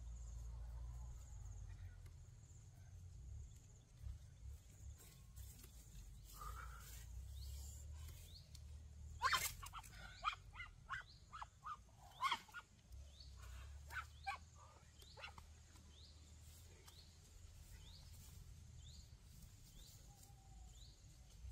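Animal calls: a cluster of short, sharp cries about nine to thirteen seconds in, then a run of brief high chirps repeating evenly, a little more than once a second, over a low steady rumble.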